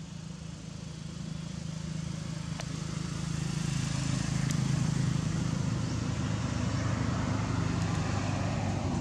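A motor vehicle's engine running with a steady low hum, growing louder over the first few seconds and then holding.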